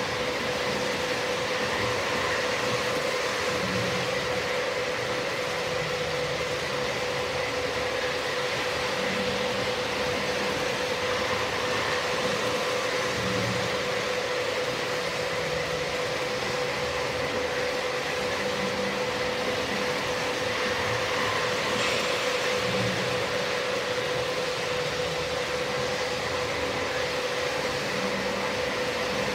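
Electric model trains running around a layout: a steady hum and whine from the motors with the wheels rolling on the track, and soft low bumps recurring every second or two.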